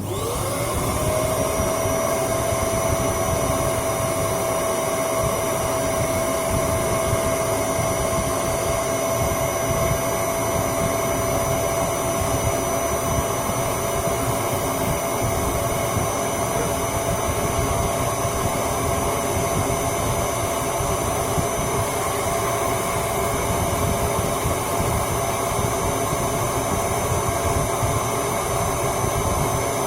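An electric motor starts up, its whine rising to a steady pitch within about a second, then runs steadily with a loud rushing noise.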